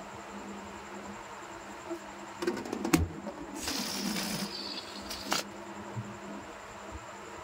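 Inflated rubber balloon handled by hand: rubbing and squeaking, then a sharp snap about three seconds in. Air hisses out of the balloon for about a second as it deflates, and there is a single click near the end.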